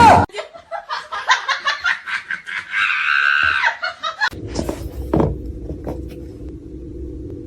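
A person laughing in quick bursts, with a higher drawn-out squeal about three seconds in. After about four seconds the laughter stops and a steady low hum takes over.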